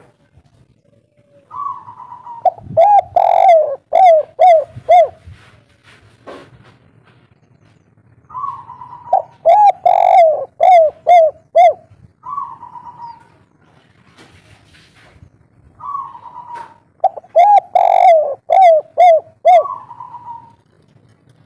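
Spotted dove (tekukur) singing its song three times, of the type hobbyists call kuk 3. Each phrase is a rough opening note followed by a quick run of short, clear coos.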